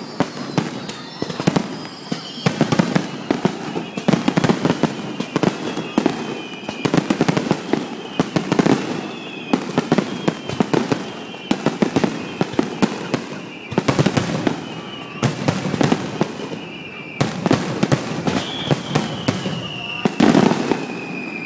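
Fireworks finale barrage: a rapid, unbroken run of sharp bangs and crackling bursts. High whistling tones slide slowly downward over the bangs again and again.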